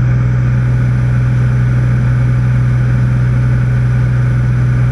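Cessna 206 Stationair's piston engine and propeller droning steadily in flight, heard inside the cabin, with a strong, unchanging low hum.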